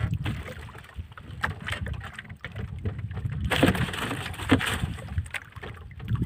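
Wind rumbling on the microphone aboard a small outrigger fishing boat, with scattered knocks and rustling as a large caught fish is handled in the net-lined hull. The handling noise is busiest a little past the middle.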